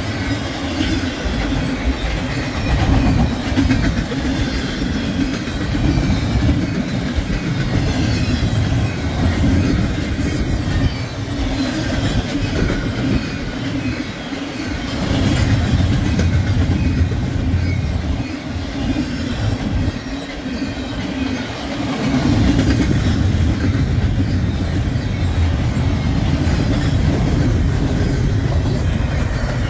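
BNSF double-stack intermodal train's well cars rolling past: a steady rumble with the clickety-clack of wheels over the rails.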